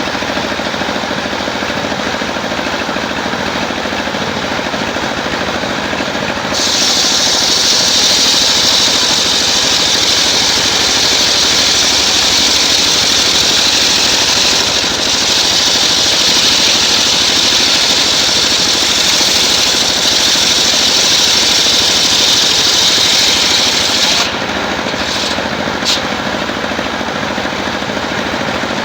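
Engine-driven sawmill running steadily. About six seconds in, its blade bites into a coconut-wood log and a loud, high cutting hiss rides over the engine for about eighteen seconds. The hiss drops away suddenly near the end, leaving the engine running.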